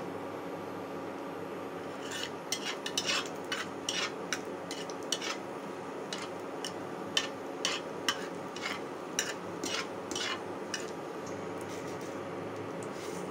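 A metal spatula scraping and tapping against a kadai in a run of short irregular clicks while dried red chillies are stirred in hot oil for a dal tempering. A steady hum runs underneath.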